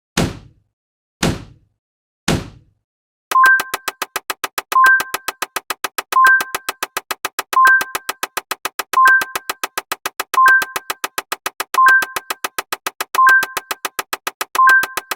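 Synthetic counting sound effects. First come single decaying thumps about a second apart. About three seconds in, they give way to a fast, even run of clicks, with a two-note electronic beep about every second and a half.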